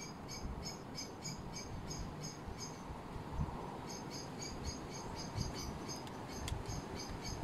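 An insect chirping in a steady run of short high chirps, about four a second, with a brief pause about three seconds in.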